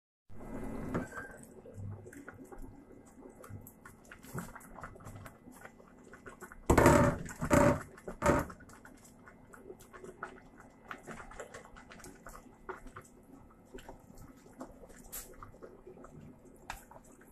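Hands adding sheets of fresh tofu skin to a pan of hot pot: scattered light clicks and taps, with three loud short noises about seven to eight and a half seconds in.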